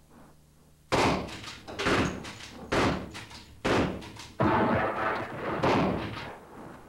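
A series of six heavy slamming impacts, about one a second, each hitting hard and ringing on briefly before the next.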